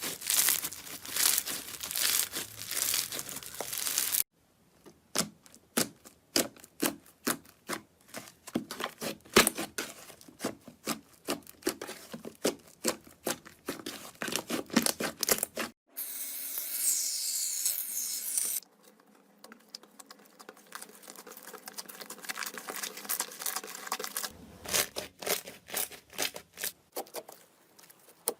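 Hands squeezing and stretching slime, giving runs of sharp crackling pops. The sound changes abruptly several times as the clips cut, and a stretch about two-thirds through is a steadier high hiss.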